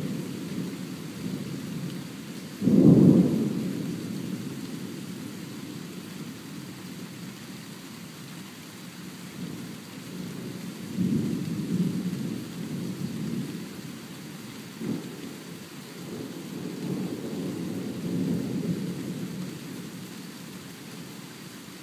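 Thunderstorm: a sharp, loud thunderclap about three seconds in, followed by several lower, rolling rumbles of thunder later on, over the steady hiss of rain.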